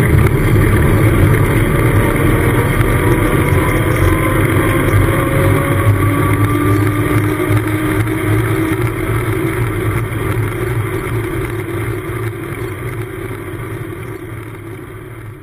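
Wind rush and tyre roar of a downhill bicycle's knobby tyre rolling fast on tarmac, picked up by a GoPro mounted beside the wheel. A faint hum slowly drops in pitch through the middle, and the whole sound fades away toward the end.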